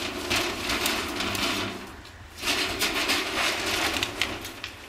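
Folding corrugated-metal shed doors being pushed open by hand, the panels rattling and scraping as they slide and fold. They move in two long pushes with a short pause about two seconds in.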